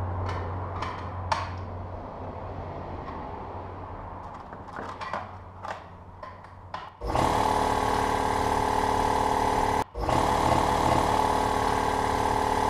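A few light clicks and taps of hands on the fittings, then the Husky 60-gallon air compressor's electric motor and pump kick on suddenly about seven seconds in and run steadily and loudly, cutting out for an instant about three seconds later and starting straight back up.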